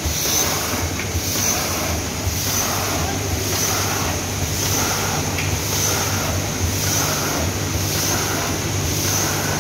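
Automatic pulses packing machine (vertical form-fill-seal with a cup filler) running: a steady low motor hum under a repeating hiss and clatter about once a second, as the machine cycles through pouches.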